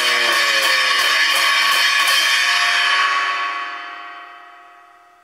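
Drum kit cymbals struck over and over by a small child with wooden drumsticks, a crashing wash of cymbal ringing. The hits stop about three seconds in, and the cymbals ring on and fade steadily away.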